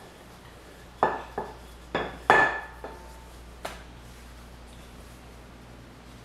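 Several short knocks and clatters of a wooden rolling pin on a stone countertop as it is rolled and then set down beside the dough, the loudest about two seconds in. After that only faint, steady room hum.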